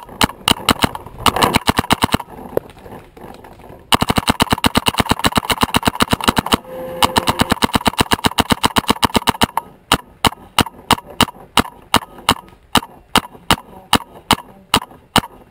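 Paintball marker firing in rapid strings of shots: a fast string, a pause of about two seconds, a long very fast string, then steadier shots at about three or four a second.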